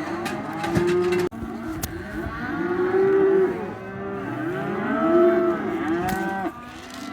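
Many cattle mooing at once, their long calls overlapping continuously.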